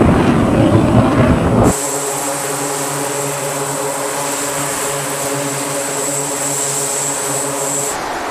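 A loud low rumble, then about two seconds in a sudden change to the steady running of an E-2 Hawkeye's twin turboprop engines: a droning propeller hum under a high, steady turbine whine, which stops near the end.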